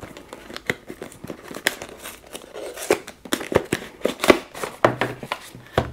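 A small cardboard product box being opened and handled by hand: a run of irregular crinkling, scraping and small clicks from the card and its packaging, with a few sharper snaps.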